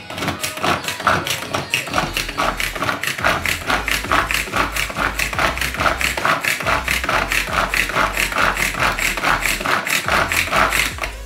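Background music with a fast, steady beat and a pulsing bass line.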